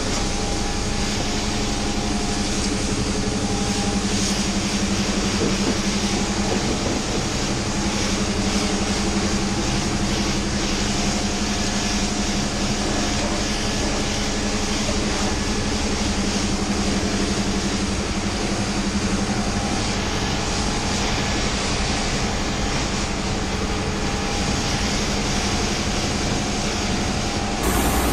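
Pressure washer running, its lance jetting hot water against a bus's side and rear panels: a steady hiss of spray over a steady motor hum.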